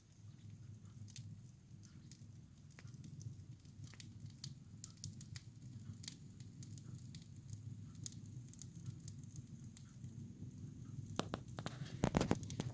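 Wood fire crackling in a fireplace as a top-down-lit fire catches: scattered sharp pops and snaps over a low steady rumble. A cluster of louder knocks and rustles comes near the end.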